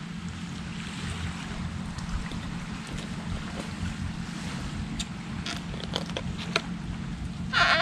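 Surf washing on the beach and wind on the microphone, with a few faint clicks in the second half as a fillet knife cuts along a lookdown fish on a wooden board. A short, louder sound comes right at the end.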